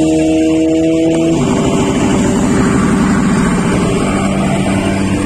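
Fishing boat's engine running steadily while under way, with a rushing noise of water and wind; the engine note changes about a second and a half in.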